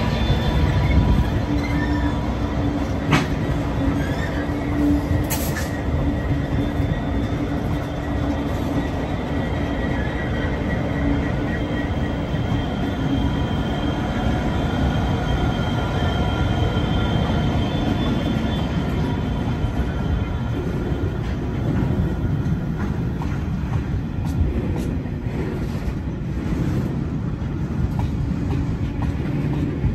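Freight train passing at close range: a consist of 82 class diesel-electric locomotives running by, then a long string of grain hopper wagons rolling past with a steady rumble and intermittent thin wheel squeal.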